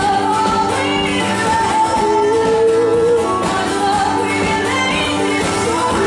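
Two women singing together over two strummed acoustic guitars, holding long notes.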